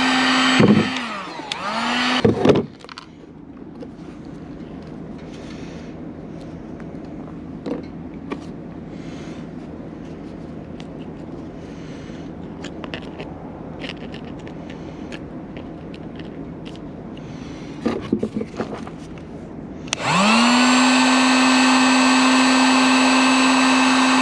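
Handheld heat gun's fan motor running with a steady whine while melting plastic for a weld patch, wavering and switched off about two and a half seconds in. A quieter stretch of low hum with faint clicks and taps follows, then the heat gun is switched on again near the end, its whine rising as the motor spins up to a steady speed.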